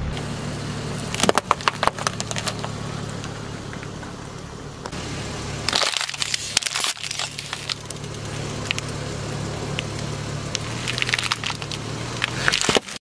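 A car tyre slowly rolling over and crushing things, plastic drink bottles among them: bursts of cracking and crackling plastic about a second in, again around six seconds in, and near the end, over the low hum of the car's engine.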